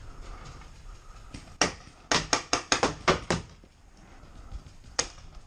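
Paintball markers firing: a single sharp shot, then a quick string of about seven shots at roughly five a second, and one more shot near the end.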